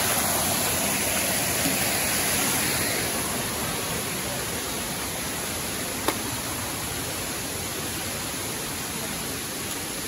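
Steady rush of Kiliyur Falls' water, easing off slightly after about three seconds, with one sharp click about six seconds in.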